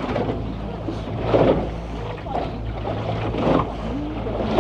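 Motor boat's engine running with a steady drone as the boat rides through swell, with three louder surges of water splashing against the hull.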